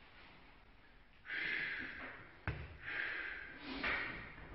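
A person breathing hard, with three sharp, hissing breaths about a second and a half apart. A single knock comes about halfway through.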